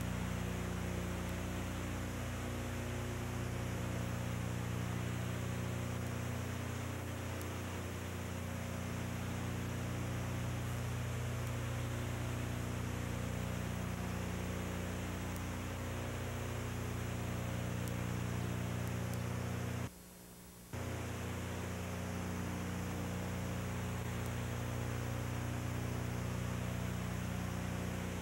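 Steady electrical mains hum with an even hiss, the empty sound track of a silent old home-movie transfer; it drops out briefly about two-thirds of the way through.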